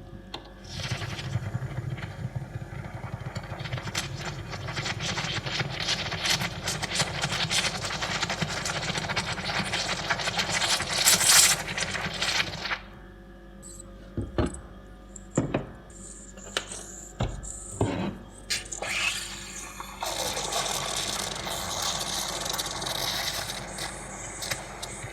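Espresso machine steam wand hissing and crackling as it froths milk, growing louder before it cuts off suddenly. Then several separate knocks and clatters, followed by another stretch of steady steam hiss.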